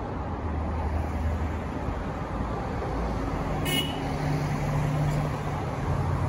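Road traffic on a city street: cars driving past with a steady tyre and engine hum that swells after the halfway point. A single very short high-pitched chirp cuts through a little past the middle.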